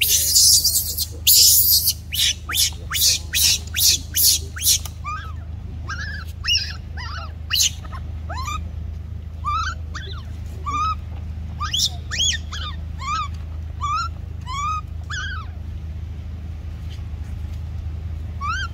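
Newborn macaque crying: a run of loud, harsh screams for the first few seconds, then a string of short rising-and-falling whimpering calls about one a second, the distress calls of a baby left alone by its mother.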